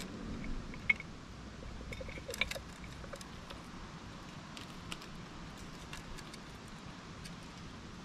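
Sharp clicks and knocks of nuts in a glass jar as a squirrel rummages in it for a nut: one loud click about a second in, a quick cluster around two and a half seconds, then scattered lighter ticks.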